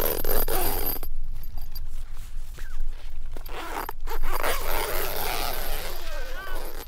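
A rasping, scraping noise in several long strokes, broken by abrupt gaps, with a few short high squeaks near the end.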